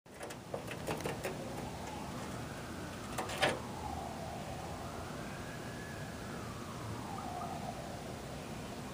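A siren wailing slowly up and down over a steady background hiss. There are a few sharp taps in the first second or so, and a louder one about three and a half seconds in.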